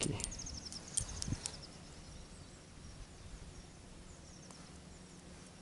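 Quiet outdoor ambience with faint, high chirping trills in the background and a few light clicks about a second in.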